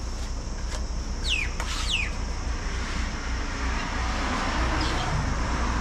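A bird gives two quick falling whistled calls a little over a second in. Under them run a steady low rumble and a steady high hiss of outdoor background noise.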